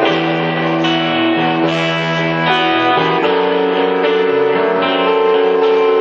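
Keyboard playing live, holding sustained chords that change every second or so.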